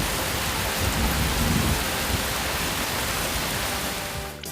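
Steady heavy rain falling, with a low rumble underneath, fading out near the end.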